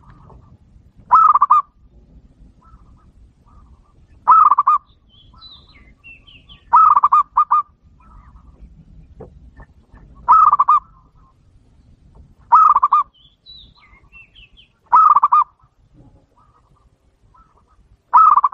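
Zebra dove (perkutut) cooing, the clear territorial call that trappers use as a lure for wild doves. A short rolling trill repeats seven times, about every two to three seconds. Small birds chirp faintly in between.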